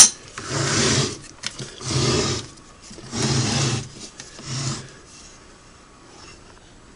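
A Singer 401A sewing machine being slid and turned on a hard surface: four short scraping shoves, each under a second, about a second apart.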